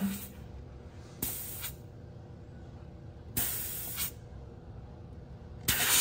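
Three-phase BLDC inverter refrigerator compressor running on a test driver: a steady low hum with a faint tone, showing that the compressor starts and runs. Three bursts of hiss come about a second in, a little past the middle, and near the end.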